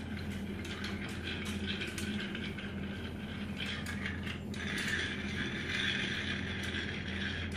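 A long metal bar spoon stirring a cocktail in a glass: a quick, continuous run of small clinks and scrapes of the spoon against the glass.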